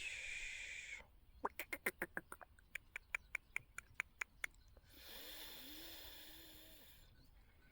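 Black francolin calling: a fast run of about fifteen short, harsh clicking notes lasting about three seconds, between stretches of hiss.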